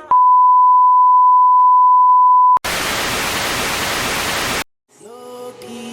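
A steady electronic beep at one pitch (about 1 kHz) holds for about two and a half seconds. It is followed by about two seconds of loud hiss like TV static, which cuts off suddenly. Music comes back in faintly near the end.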